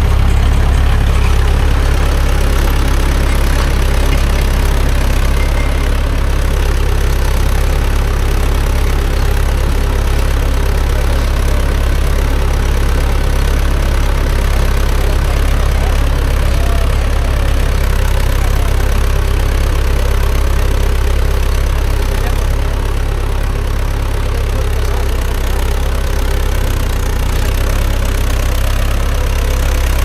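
Tractor engine running steadily with a low, even drone while pulling a five-tyne cultivator.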